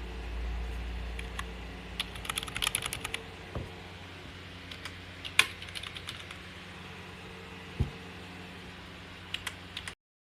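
Typing on a wireless keyboard with vintage-style round keycaps: a quick run of key clicks about two seconds in, one louder keystroke a little past halfway, and a few more clicks near the end, over a low steady hum. Two dull low thuds fall between the keystrokes, and the sound cuts off abruptly near the end.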